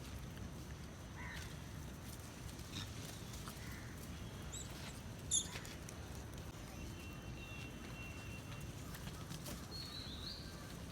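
Outdoor ambience: a steady low rumble with scattered short high bird chirps, a sharp brief chirp about five seconds in, and a wavering high call near the end.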